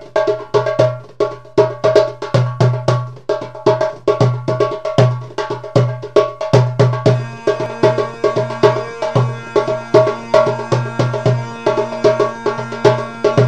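Background music: a fast, even rhythm of wood-block-like hand percussion, about three or four strikes a second, joined about halfway through by a steady held drone tone.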